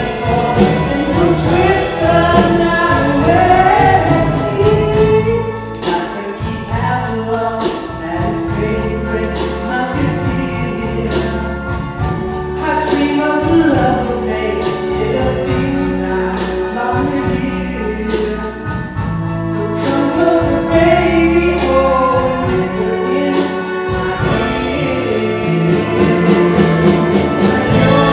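Stage-musical song: a backing track with a steady, repeating bass line and a group of voices singing together.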